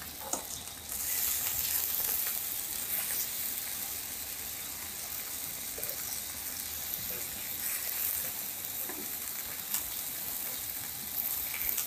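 Food sizzling in a hot pan on the stove, a steady hiss with a few faint clicks.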